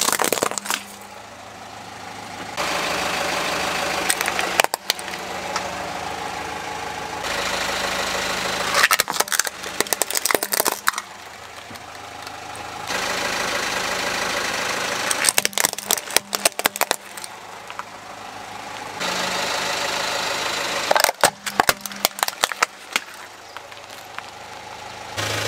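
Plastic toy trucks cracking and snapping as a car tyre rolls over and crushes them, in about five separate bursts of sharp cracks. The car's engine idles steadily in the stretches between them.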